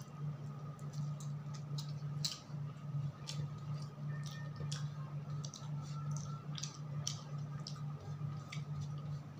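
A man eating rice and egg by hand from a metal plate: irregular wet mouth clicks and smacks of chewing, with the odd tick of fingers on the plate, over a steady low hum.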